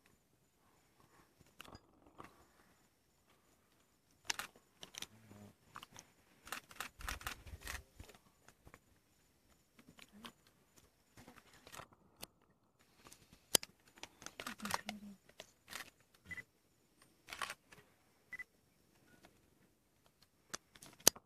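Lions feeding on a warthog carcass: meat being torn and chewed, with irregular sharp crunches and crackles.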